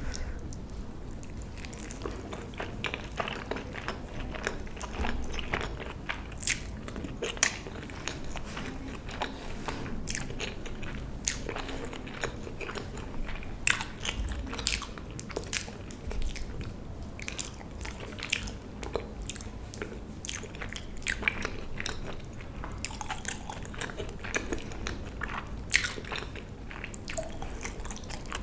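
Close-miked eating: a person biting and chewing food, with many sharp, irregular crunchy clicks and crackles.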